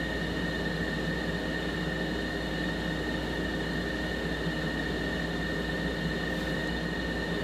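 Steady background hum and hiss with several faint constant high tones, unchanging throughout; no distinct event stands out.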